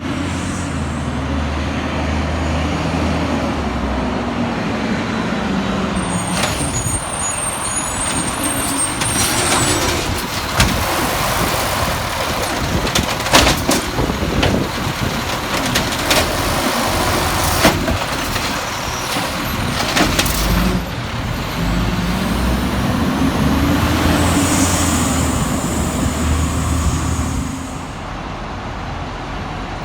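Volvo garbage truck running, its diesel engine rising and falling in pitch twice, with a hiss of air and a scatter of sharp knocks and bangs through the middle.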